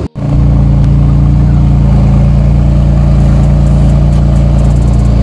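Porsche 911 GT2 RS's twin-turbocharged 3.8-litre flat-six idling steadily, loud and deep, after a brief break right at the start.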